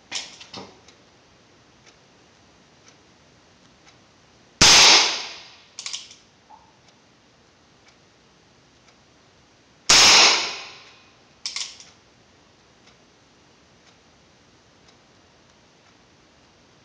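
Two shots from a Heritage Rough Rider .22 single-action revolver firing Aguila Colibri powderless, primer-only rounds: sharp cracks about five seconds apart, each ringing briefly in the small room. A fainter double click follows about a second after each shot.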